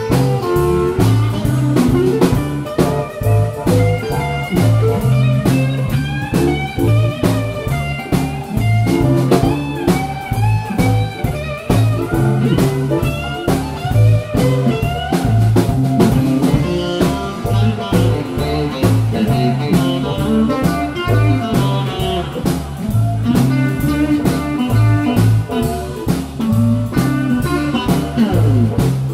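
Live blues band playing: electric guitars over bass and drum kit, with a melodic lead line on top.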